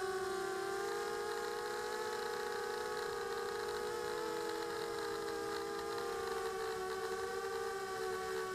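Quadcopter's electric motors and propellers whining steadily, picked up by its onboard camera, with several close tones drifting slightly in pitch as the throttle shifts.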